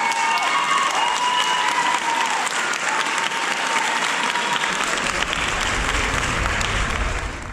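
Audience applauding, with high cheering voices over the clapping in the first few seconds. The sound cuts off abruptly at the very end.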